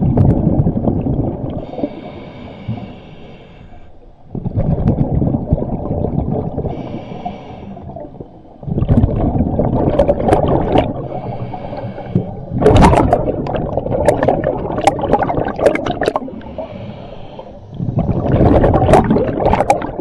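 Diver breathing through a scuba regulator underwater: a short hiss on each inhale, then a longer rumbling gurgle of exhaled bubbles. Five breaths in a steady rhythm, about one every four seconds.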